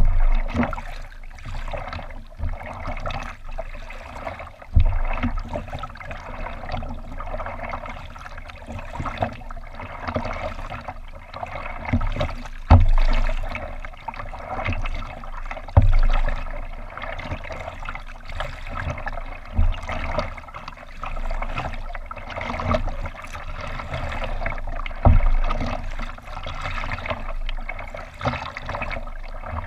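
Water lapping and trickling along the hull of a moving kayak, a steady wash with a few dull low thumps now and then.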